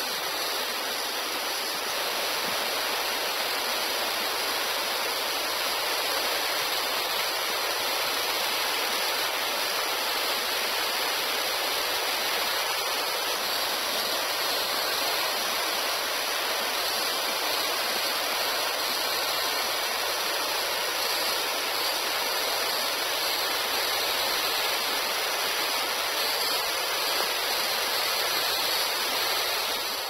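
Waterfall in the Todoroki Gorge, a tall, narrow cascade pouring down a rock face onto boulders, making a steady, even rush of falling water, mostly high with little low rumble.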